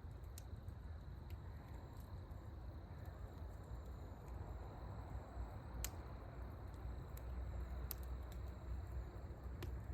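Small wood bonfire crackling, with scattered sharp pops over a low steady rumble and a faint steady high tone.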